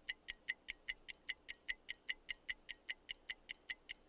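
Quiz countdown timer sound effect: a steady clock-like ticking, about five ticks a second, counting down the answer time.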